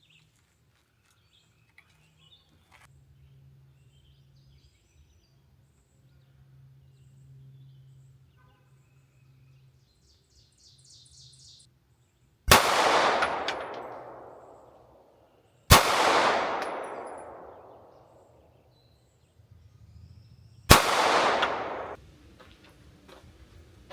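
Three gunshots at an outdoor shooting range, each a sharp crack followed by a long echo that rolls away over about two seconds. The second comes about three seconds after the first, the third about five seconds later.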